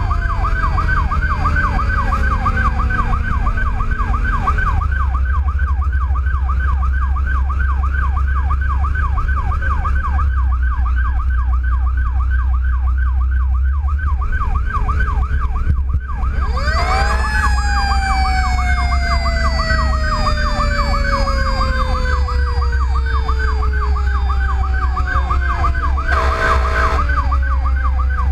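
Fire truck siren sounding a fast yelp over the rumble of the truck's diesel engine. About two thirds of the way through, a second siren winds up sharply and then slowly falls in pitch. A horn sounds for about a second near the end.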